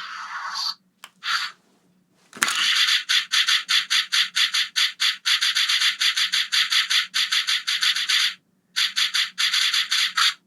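Sound effect played through the Aurachanger toy's small speaker: a sharp click of a button press, then a fast run of hissing pulses, about three to four a second, broken once by a short pause near the end.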